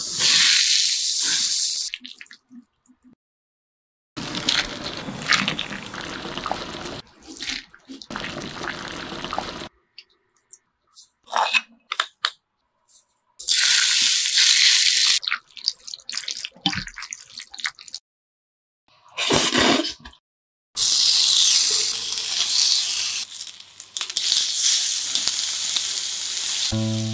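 Hot oil poured over chili powder, minced garlic and sesame seeds on a bowl of noodles, sizzling in several separate bursts of hiss with silent gaps between. Near the end, pork belly sizzles on a grill pan.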